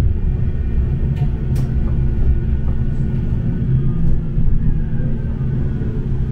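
Bombardier M5000 tram running on rails, heard from inside the passenger cabin: a steady low rumble, with a faint whine that falls gently in pitch in the second half as the tram draws into a stop.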